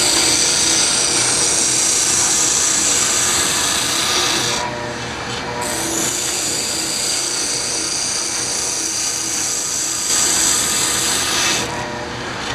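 Drum sander running, with a wooden workpiece pressed against the spinning sanding drum, giving a steady rasping hiss over the motor hum. The hiss drops out briefly about five seconds in and again near the end as the piece is lifted off the drum.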